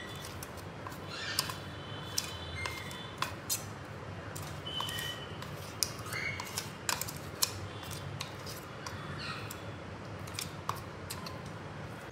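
Steel spoon scraping and tapping against a steel mixer-grinder jar: a scattered run of sharp metallic clicks with short high squeaks. A faint low hum runs underneath.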